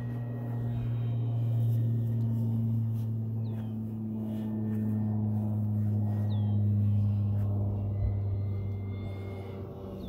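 Electric motor and propeller of an E-flite P-51 Mustang RC warbird flying overhead: a steady low drone that swells, dips and swells again, then fades near the end as the plane passes at a distance.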